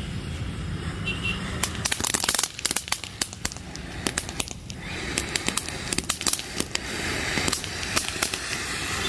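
Standard 'Crackling King' anar (crackling ground fountain firework) burning, its spray hissing as it goes. From about two seconds in it throws off rapid, sharp crackling pops, densest just after they start and scattered after that, with a good amount of crackling overall.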